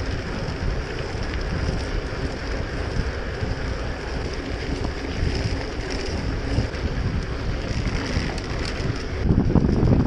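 Wind buffeting the microphone of a mountain bike's action camera, over the rumble and rattle of knobby tyres rolling on a dirt track. Near the end it becomes a louder, rougher rumble.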